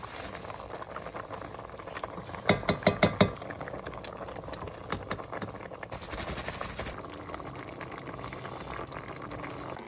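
Cooking sounds: a pot boiling with a steady hiss. A quick run of about half a dozen utensil clinks comes between two and a half and three seconds in, and a brief louder hiss follows around six seconds.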